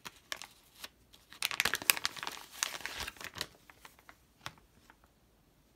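Clear plastic zip bag crinkling as a one-kilo silver bar is pulled out of it: a thick cluster of crackles from about one and a half to three and a half seconds in, then a few scattered faint ticks.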